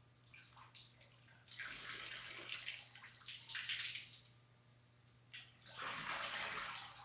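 Water splashing and pouring from a hose-fed tipping-bird fountain as its birds fill and dump water onto the floor. It comes in two surges, with a single sharp knock just before the second.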